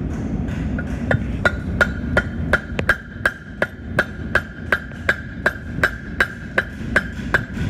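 Cross pein hammer striking a red-hot steel horseshoe on an anvil in a steady rhythm of about three blows a second, starting about a second in. Each blow rings, with a ringing note that carries between blows, as the clip is drawn out of the shoe.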